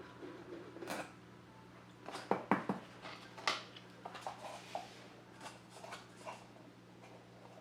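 Scattered light clicks, taps and rustles of cardboard and plastic craft-kit parts being handled, loudest a quick cluster of sharp taps about two and a half seconds in. A steady low electrical hum runs underneath.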